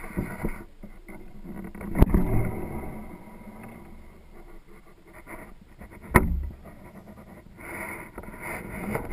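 Handling noise on a fishing rod with an action camera mounted on it: two sharp clacks about four seconds apart, each with a low thud, over a steady background hiss.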